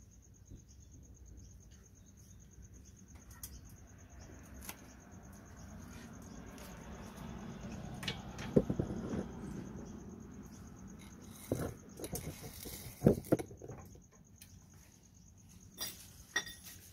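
A few sharp metal clinks and knocks from the rear suspension being jacked into line with the shock absorber, over a steady high-pitched insect chirring.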